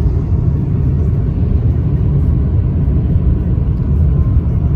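Steady low rumble of a car's engine and tyres heard from inside the cabin while driving on a snowy road.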